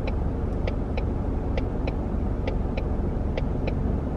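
Car cabin with a steady low road-and-engine rumble, and a turn signal clicking in an even tick-tock pattern, about two clicks a second.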